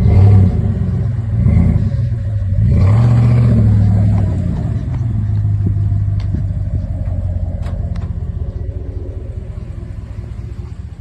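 Hemi V8 with a newly fitted exhaust, revving up in a few swells, then pulling away with a steady exhaust rumble that slowly fades as the vehicle drives off.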